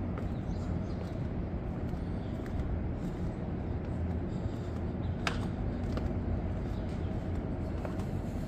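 Outdoor city ambience: a steady low rumble of traffic, with a few sharp clicks, the loudest about five seconds in.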